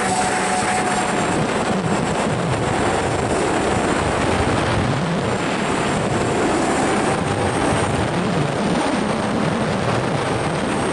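Onboard sound of a radio-controlled model aircraft in flight: a steady motor and propeller hum with a faint whine, buried under heavy wind rush on the onboard camera's microphone.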